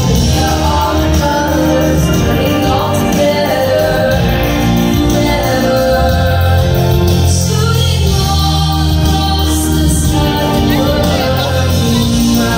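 Show music with singing played loud over large outdoor loudspeakers, with held, sustained notes and a steady level.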